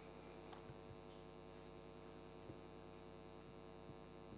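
Near silence: a steady electrical hum from the hall's sound system, with a few faint clicks.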